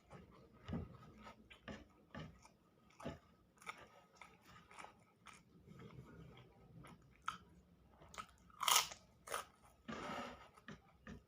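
Close-miked eating sounds: a person chewing and biting food, with irregular wet clicks and crunches. The loudest, a sharp crunch, comes near the end.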